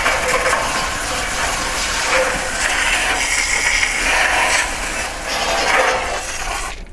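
Garden hose spraying water onto an air-conditioner condenser's coil fins: a steady hissing spray whose tone shifts as the stream moves, cutting off suddenly near the end.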